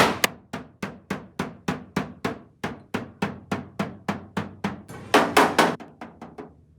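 Hammer blows on the sheet metal of a car hood to work out a dent, a fast regular run of strikes about four a second. There are a few harder blows about five seconds in, and then the hammering stops.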